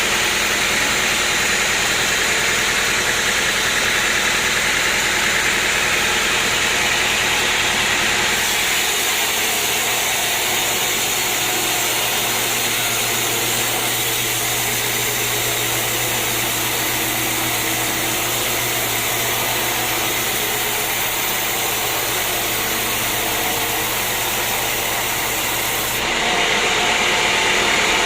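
Sawmill machinery running steadily. About eight seconds in the high hiss drops and a low steady hum comes up, and the sound shifts back a couple of seconds before the end.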